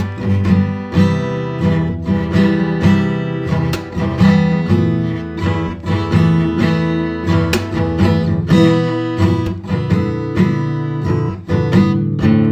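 Acoustic guitar playing strummed chords in a steady rhythm, an instrumental cover without singing.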